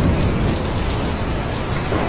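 Steady heavy rain falling, with a low rumble of thunder underneath.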